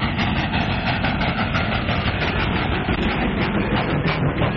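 Train running with a steady, rhythmic clatter of wheels on rails, heard on a muffled, narrow-band early sound-film track.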